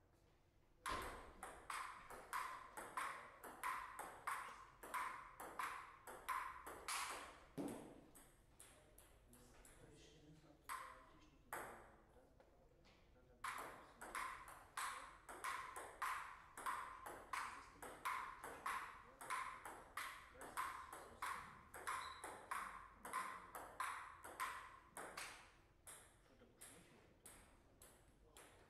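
Table tennis rallies: the ball clicking off the rackets and the table in quick, even succession, about two hits a second. There are two long rallies with a pause of several seconds between them, and a few lone bounces in the pause.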